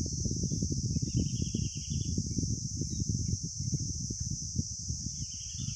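Fish curry simmering in a kadhai over a wood fire: a dense, irregular low bubbling and popping of the gravy, cooking the masala in the added water. Under it a steady high chirring of crickets, with a short rapid trill about a second in and again near the end.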